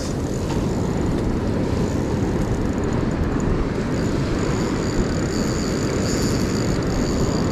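Steady low rumble of breaking surf and wind on a beach. Faint high steady tones join it from about four seconds in.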